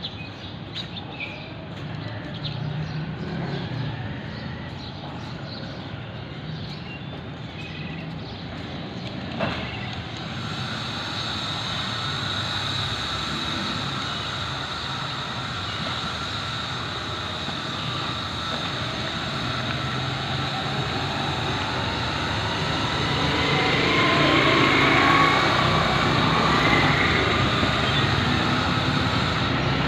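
Background traffic noise: a steady hum of vehicles that grows louder over the second half.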